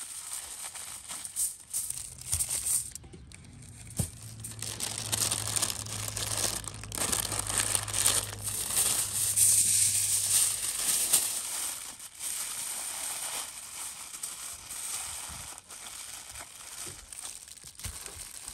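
Aluminium foil crinkling and rustling as it is folded and pressed by hand into parcels, in irregular bursts, loudest in the middle. A steady low hum underneath fades out about two-thirds of the way through.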